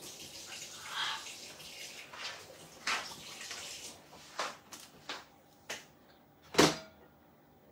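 A rushing noise for the first few seconds, then a run of short, sharp knocks and clicks, the loudest one near the end.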